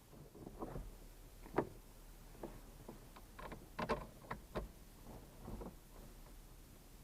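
Irregular knocks, clicks and light rubbing of a plastic cab panel and its parts being handled and fitted inside a tractor cab. A sharp knock comes a bit over a second in, then a cluster of clicks around the middle.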